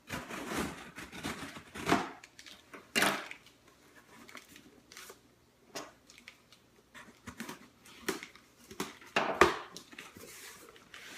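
Cardboard shipping box being opened by hand: irregular tearing, rustling and knocking of cardboard and packing, with a few sharper, louder bumps.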